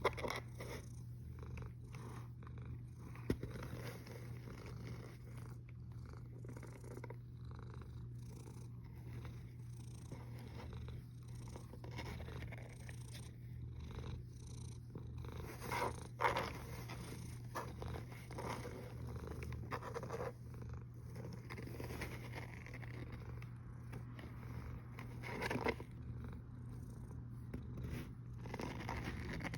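Sleeping domestic cat purring and snoring with a steady low rumble, with a few louder breaths now and then.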